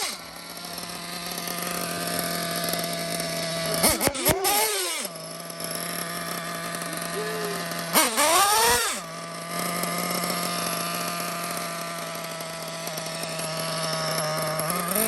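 Small nitro RC car engine running at a steady high idle, blipped up and back down around 4 and 8 seconds in and again near the end.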